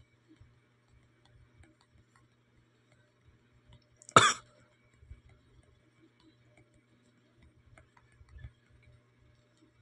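One short, sharp cough about four seconds in; around it, only a faint steady low hum and a few soft ticks.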